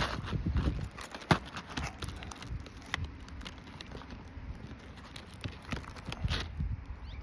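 Irregular clicks, knocks and scrapes of a roof snake shingle-removal tool prying under brittle asphalt shingles to work a damaged shingle loose.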